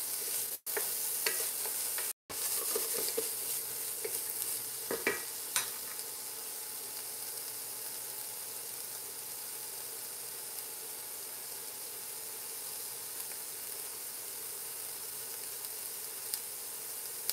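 Diced vegetables (zucchini, carrot, poblano chile and onion) sizzling in a little oil in a frying pan, with a wooden spoon stirring and scraping against the pan during the first few seconds, then a steady sizzle. The sound cuts out briefly twice near the start.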